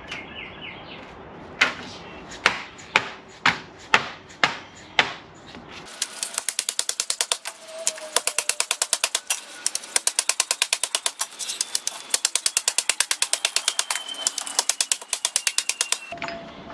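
Dead blow hammer striking the edge of a sheet-metal floor-pan patch laid over a concrete edge, bending a 90-degree lip into it without a brake. About seven separate blows come roughly half a second apart, then from about six seconds in a fast, even run of sharp taps goes on until near the end.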